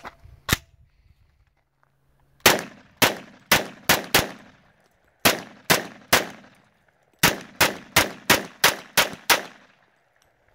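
1927A1 Thompson Tommy gun pistol, a semi-automatic .45 ACP, fired: one shot about half a second in, then quick strings of about five shots, three shots and nine shots.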